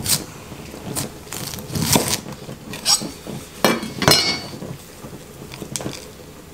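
Chef's knife cutting through broccoli stalks on a wooden cutting board: a string of crunchy cuts and knocks of the blade on the board over the first four seconds, the last with a brief metallic ring as the knife is put down. Softer clicks and rustling follow as the broccoli is handled.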